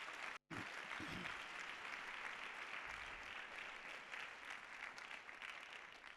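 Large church congregation applauding, an even wash of many hands clapping. It drops out for an instant about half a second in, then fades away near the end.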